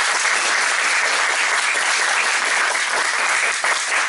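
An audience applauding: steady clapping from many hands.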